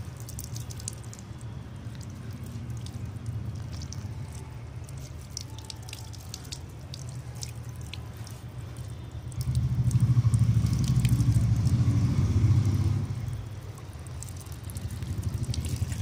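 Water from an outdoor tap running and splashing over a bird of prey's soaked feathers, with scattered sharp drips and splashes throughout. A louder low rumble comes in from about ten to thirteen seconds in.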